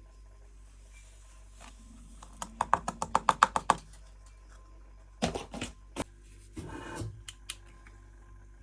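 A quick run of about a dozen sharp clicks, roughly ten a second, followed by a few separate knocks and a short rustle, from something being handled.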